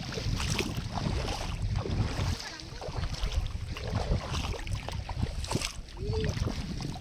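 Shallow seawater sloshing and splashing as someone wades through it, with wind rumbling on the microphone for the first couple of seconds.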